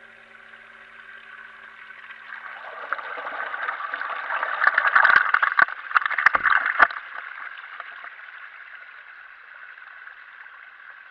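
Water gurgling, swelling to its loudest about five to seven seconds in with a few sharp clicks, then dying away.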